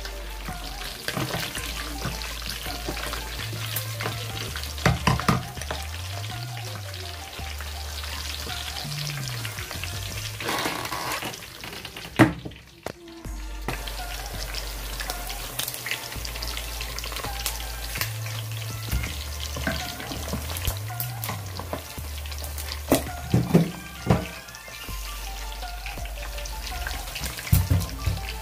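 Chunks of meat deep-frying in a pot of hot oil, sizzling and bubbling steadily, with a wooden spoon stirring and clicking against the pot now and then. The sizzle drops out briefly about twelve seconds in, and a low bass line of background music runs underneath.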